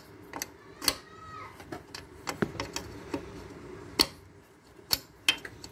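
Irregular sharp clicks and knocks of metal parts on a miter saw being handled during a bevel-angle adjustment, about five distinct knocks spread over a few seconds.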